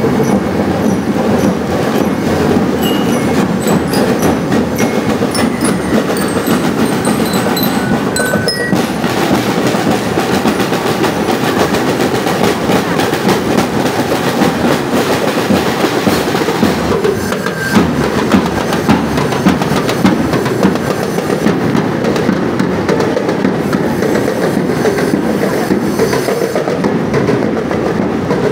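Snare drums of a marching drum corps played in a fast, continuous clatter of beats, with a few sharper accents past the middle.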